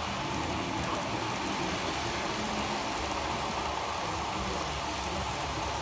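Model freight train rolling past close by, a steady rumble of its wheels on the track.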